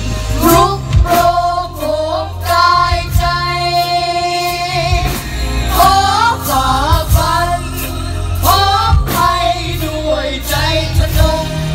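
Live music: a choir singing a song, backed by a band with several drum kits, bass and other instruments, with regular drum strikes.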